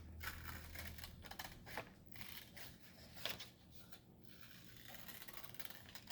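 Scissors cutting paper around a curve: a series of quiet, irregularly spaced snips.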